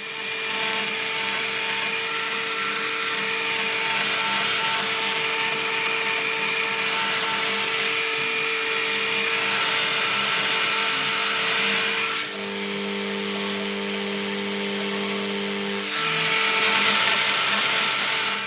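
Stepper motors of a 3D-printed MPCNC running, giving a steady whine over a hiss. A second, lower tone joins from about twelve to sixteen seconds in as the motion changes.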